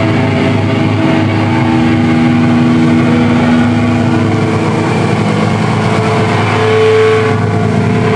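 Grindcore band playing live: heavily distorted electric guitar and bass over drums and cymbals, loud and dense, with sustained, droning guitar notes.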